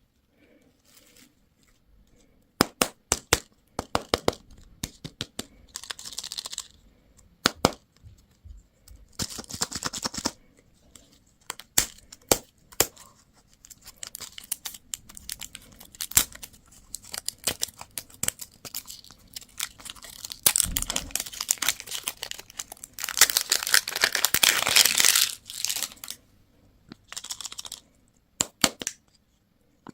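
Plastic candy and toy packaging being unwrapped by hand: crinkling and tearing of wrappers among many sharp plastic clicks and snaps, with the longest, loudest stretch of tearing about twenty-three seconds in.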